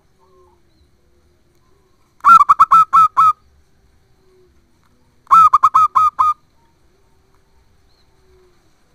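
Zebra dove (perkutut) singing: two phrases of about six quick coos each, each phrase about a second long, the second following about three seconds after the first.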